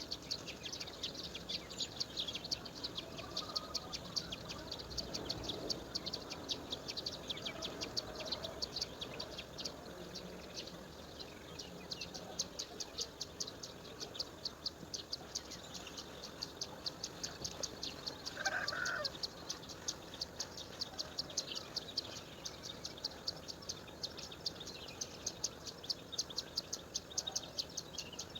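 Insects chirping in a fast, even rhythm, about four chirps a second, with a short, louder bird call about two-thirds of the way through.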